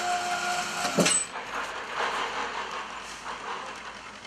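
Electric winch motor of a mini roof crane running with a steady whine while lowering a loaded wheelbarrow, then cutting off with a sharp clunk about a second in. After that come quieter knocks and rustling as the load settles.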